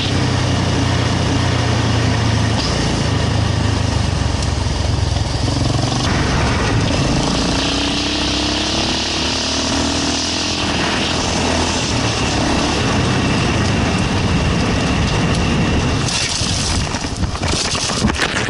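Kawasaki KLR650's single-cylinder engine running while the motorcycle is ridden off-road, its note shifting several times as throttle and gear change, over a steady rushing noise. A few sharp knocks come near the end.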